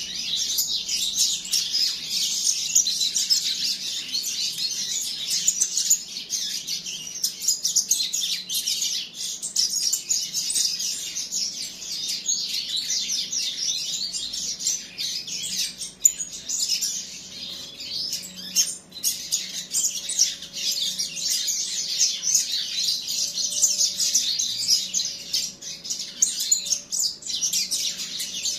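Several caged young finch-like songbirds chirping and calling almost without a break, high-pitched and overlapping.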